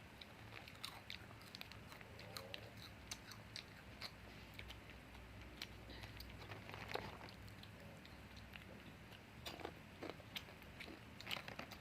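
A person chewing food close to the microphone: a faint, irregular scatter of short mouth clicks.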